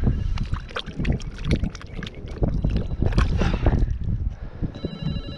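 Wind buffeting the microphone, with irregular splashing and rustling at the water's edge. A brief steady tone sounds near the end.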